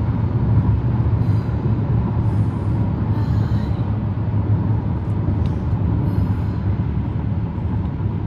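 Steady low road rumble of a moving car heard from inside the cabin, with a few faint short hisses.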